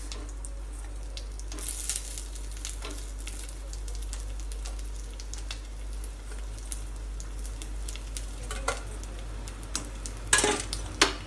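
Fried egg balls sizzling and crackling in hot oil in a wok with red chilies and curry leaves, a steady hiss dotted with small pops. There are louder crackles about two seconds in and again near the end.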